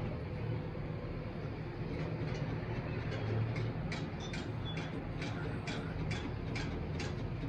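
A steady low engine-like rumble, with a run of short sharp ticks from about four seconds in.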